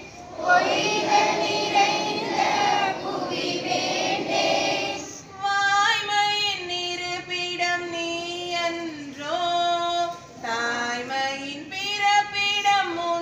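Several voices singing together, then from about five seconds in a single woman's voice singing a slow melody into a microphone, holding long notes that waver and slide between pitches.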